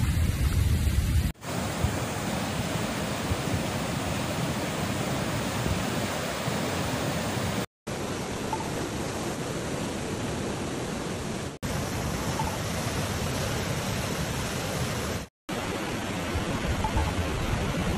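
Muddy floodwater rushing through a creek channel in a flash flood, a steady churning rush. It breaks off for a moment four times where one clip cuts to the next.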